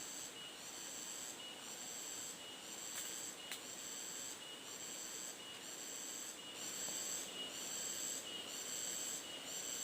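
Forest insects chirping in a steady, regular rhythm of high-pitched pulses, about one and a half a second, with a fainter high note repeating beneath them.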